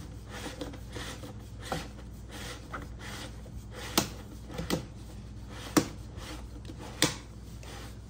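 Plastic rubbing and clicking as the ribbed flexible exhaust hose of a portable air conditioner is twisted and screwed into its plastic window-adapter fitting. There are several sharp clicks, the loudest about four, nearly six and seven seconds in. The hose end goes in loosely.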